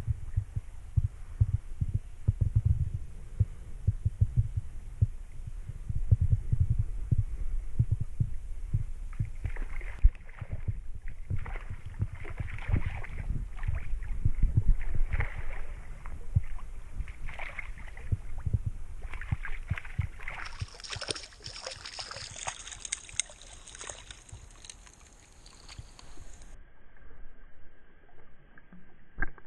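Irregular low thumping and rumble on a body-worn camera's microphone while a hooked trout is played on a light rod, then a run of short splashes and water noise as the fish thrashes at the surface and is brought to hand.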